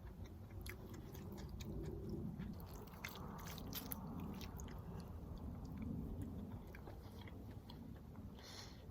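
A person chewing soft food, raw beef tartare, with quiet wet mouth sounds and faint clicks, and a brief sharper hiss near the end.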